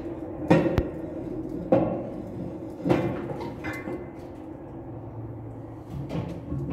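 Irregular metallic clanks and knocks of tools and engine parts being handled at the top of a JCB engine during an overhaul, with a steady low hum underneath.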